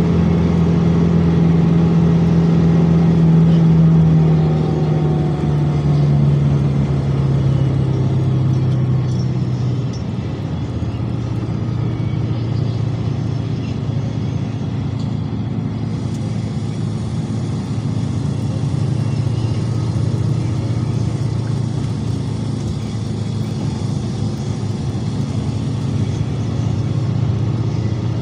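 Motor vehicle's engine and road noise during a ride, a steady drone whose pitch falls over the first ten seconds as the vehicle slows, then holds steady.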